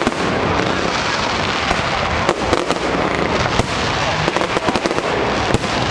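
Fireworks display: a dense, continuous crackle of many small bursts, with several sharper bangs standing out.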